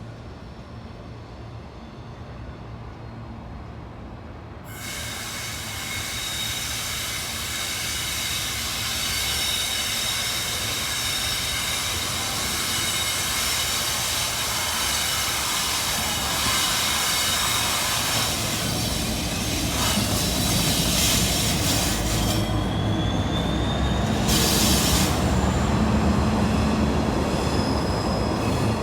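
A train passing, its wheels squealing in steady high tones that start suddenly about five seconds in, over a rumble that grows louder toward the end.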